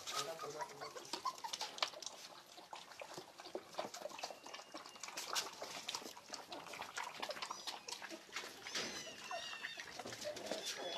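A litter of young puppies lapping and slurping milk from plastic bowls: many small, irregular wet clicks and smacks. A few faint high whimpers come in about four seconds in and again around nine seconds.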